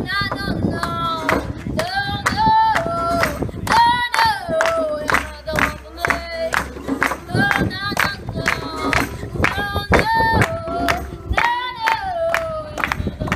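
A youth vocal group singing together in unison over a steady clapped beat.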